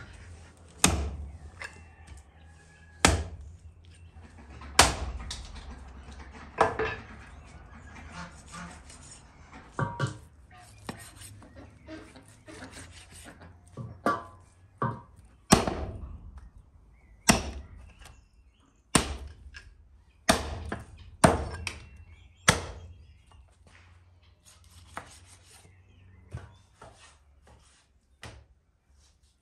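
Chopping lamb with a cleaver and knife on a wooden stump block: about fifteen sharp, irregularly spaced blows, with softer cutting sounds between them.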